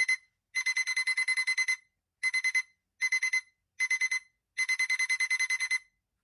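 Phone alarm beeping: rapid, high electronic beeps, about eight a second. They come in short bursts of four with brief gaps, plus two longer runs of a dozen or so beeps.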